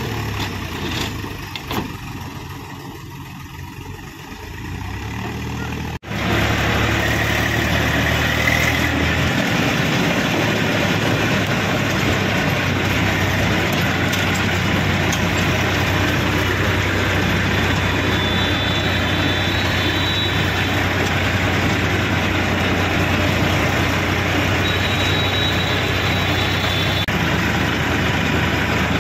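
Diesel engine of a JCB 3DX backhoe loader running while it tips a bucket of sand, then, after a cut about six seconds in, a heavy engine running steadily under loud, even road and wind noise as the backhoe drives along a road.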